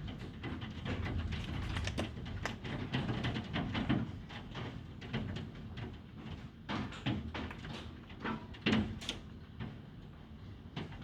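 Hailstones striking a hard surface: many irregular sharp clicks and knocks, some louder than others, over a low steady rumble.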